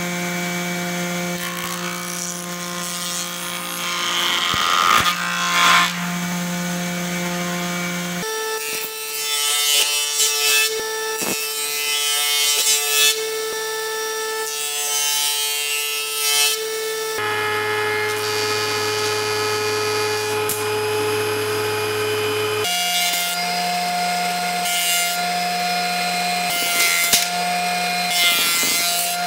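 Woodshop jointer (surface planer) running with a steady hum while its cutter head planes an olive-wood board, rougher cutting noise coming and going as the board passes over the knives. Near the end a thickness planer is running, its hum changing abruptly between segments.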